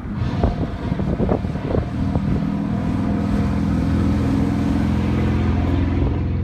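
Motor vehicle engine running while driving, settling into a steady hum about two seconds in after some uneven rumble and knocks.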